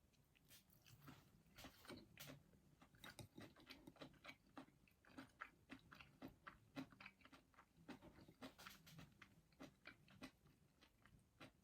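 Faint, close chewing of a mouthful of bibimbap made with rice, salad and tuna: irregular small crunches and mouth clicks, several a second.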